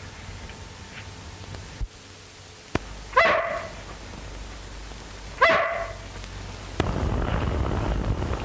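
German shepherd dog barking twice, about two seconds apart, each bark short and falling in pitch. Near the end a steady background noise rises.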